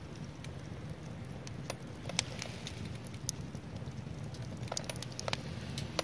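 Split firewood burning in a Honma wood stove, crackling, with scattered sharp pops and snaps over a low steady rumble of flame.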